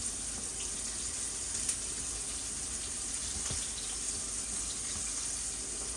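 Flour-dusted fish frying in a pot of hot oil: a steady sizzle with the odd faint crackle.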